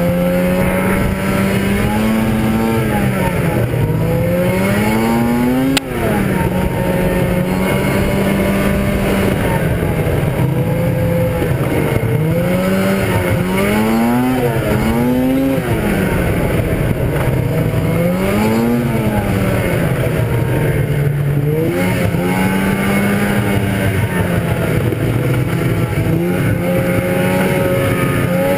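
1997 Arctic Cat ZR 440 snowmobile's two-stroke twin engine running under way, its pitch rising and falling again and again as the throttle is opened and eased off. A single sharp click comes about six seconds in.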